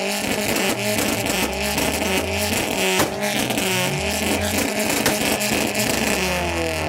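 Music with a bass line stepping from note to note, mixed with car engine sound and a steady hiss; one sharp crack about three seconds in.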